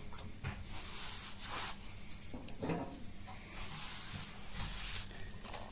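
Faint rustling and a few short breathy hisses close to the microphone. The smart radiator thermostat's motor makes no audible whine as it slowly draws its pin back in.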